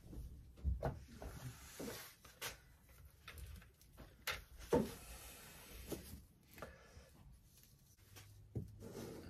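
Faint, scattered scrapes and light knocks of a putty knife working ready-made joint compound over a model road form, the loudest about a second in and near the middle.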